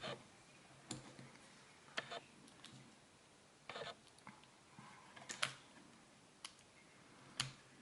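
A handful of light, irregular clicks and taps of small hand tools on a Sargent six-pin lock core as its C-clip is worked on.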